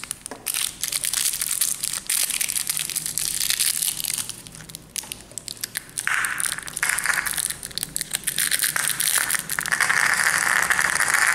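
Clear plastic sweet wrapper crinkling and crackling as fingers handle it, with dense crackly rustling throughout.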